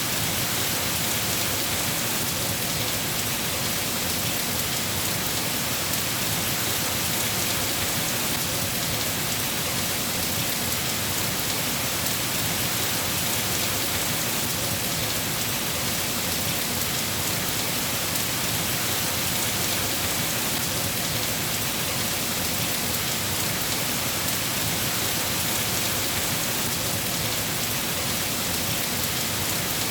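Steady, heavy rain falling and pattering on surfaces, a constant even hiss with no let-up.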